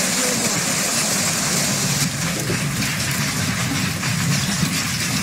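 Heavy rain and hail coming down in a storm, a steady rushing noise.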